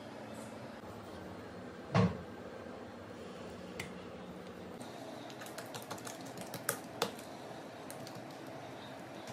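Hands working oiled parotta dough on a countertop: one dull thump about two seconds in, then a scatter of light taps and clicks as the dough is pressed and spread flat by hand.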